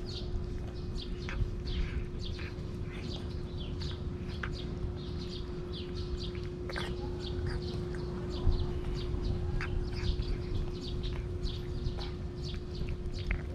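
A cat chewing and licking wet food from a steel bowl close to the microphone: quick, irregular wet clicks and smacks, several a second. A steady low hum runs underneath.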